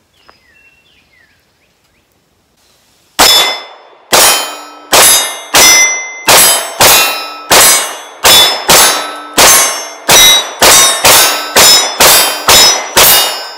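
A string of about eighteen pistol shots, starting about three seconds in and coming roughly two a second, each followed by the ringing ding of a steel plate target being hit.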